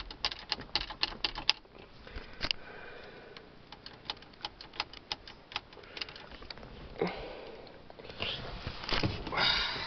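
Irregular run of sharp plastic clicks from the loose passenger-door power window switch being pressed and handled with the car's power off, so no window motor runs. Near the end, a couple of seconds of rustling handling noise.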